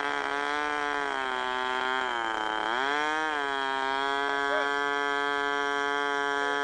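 Model airplane engine running with a steady high-pitched drone; a little past two seconds in its pitch dips briefly and climbs back up.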